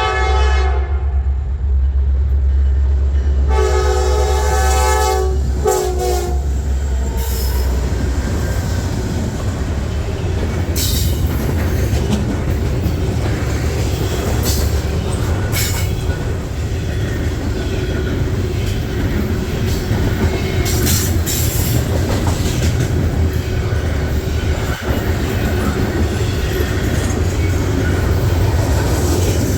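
Freight train's multi-chime locomotive horn sounding: one blast ending just after the start, then a longer blast and a short one about four to six seconds in, over the low rumble of the passing diesel locomotives. After that the freight cars roll by with a steady clatter of wheels over the rails and scattered sharp clicks.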